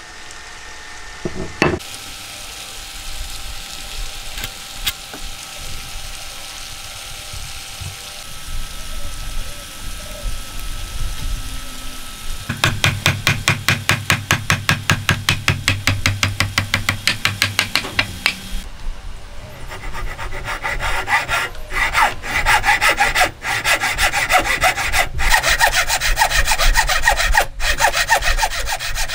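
Hand saw cutting dark wood in fast, even back-and-forth strokes, with a thin-bladed frame saw doing the cutting in the last stretch; a single knock sounds about two seconds in, and the first part is much quieter.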